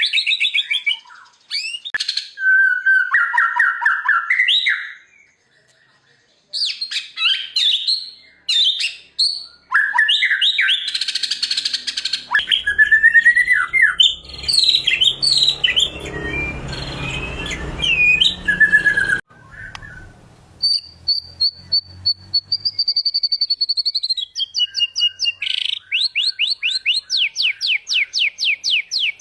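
White-rumped shama (murai batu) singing a varied song of whistled and chattering phrases, with a brief pause near the start. Later comes a long held whistle that falls in pitch, then a fast run of evenly repeated notes, about four or five a second.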